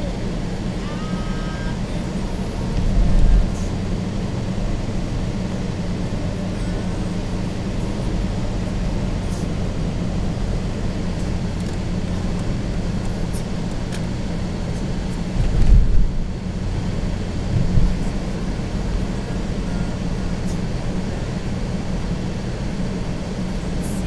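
Steady engine and road noise heard inside a moving car's cabin, a low hum throughout. A few louder low thumps break in about three seconds in and again near sixteen and eighteen seconds.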